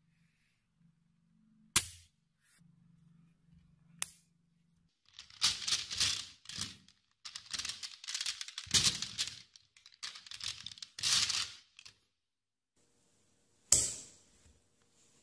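Small neodymium magnets clicking together: two single sharp snaps, then several seconds of dense clacking and rattling as a handful of magnetic balls is worked by hand, and one more sharp snap near the end.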